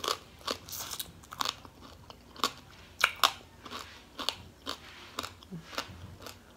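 Crunching and chewing of crisp fried fish: a string of irregular crunchy bites, about two a second.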